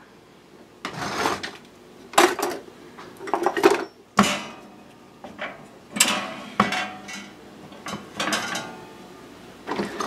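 Metal baking tray and rack of a toaster oven being handled: a series of irregular clatters, knocks and short scrapes of metal.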